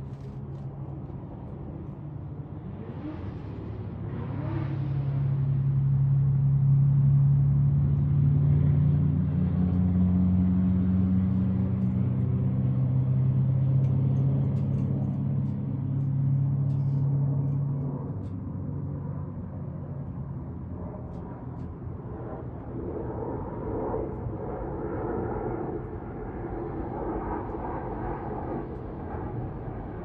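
Low engine hum of a nearby motor vehicle, swelling a few seconds in, holding steady, then easing off at about 18 s to a lower rumble.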